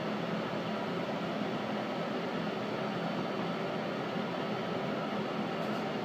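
Steady hum and hiss inside a subway car, the car's ventilation fans and equipment running evenly.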